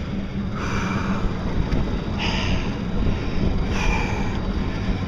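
A man breathing audibly close to the microphone, a breath about every second and a half, over a steady low rumble of wind on the microphone and the moving boat.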